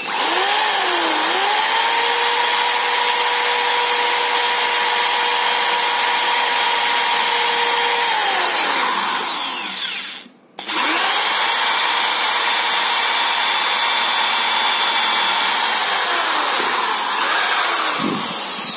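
iBell 280 W corded electric screwdriver-drill with a 4 mm metal bit drilling through thin sheet metal: the motor runs at a steady pitch, winds down about nine seconds in and stops briefly, then starts again and runs until it winds down near the end.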